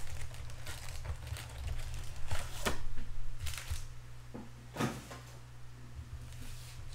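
Crinkling, tearing and rustling of packaging as a box of trading card packs is opened by hand, with a few sharper crackles about two and a half and five seconds in, over a steady low hum.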